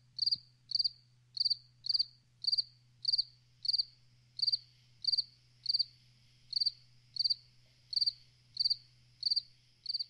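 A cricket chirping in a steady, even rhythm, about three short chirps every two seconds, over a faint low hum.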